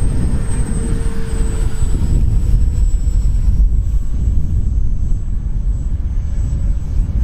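Electric ducted fan of a small radio-controlled model jet whining high overhead, its pitch sinking slightly as it passes, over a heavy low rumble.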